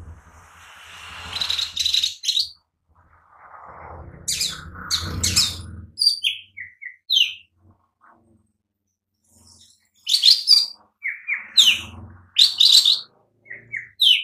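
Cucak ijo mini, a small green leafbird, singing in irregular bursts of short, sharp chirps and quick whistled notes, mixed with rougher, noisier passages.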